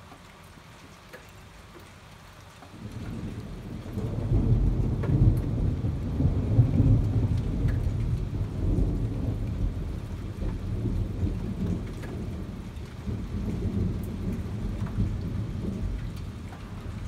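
Rain falling, then thunder starting about three seconds in: a deep rumble that swells, peaks over the next few seconds and keeps rolling for the rest of the time.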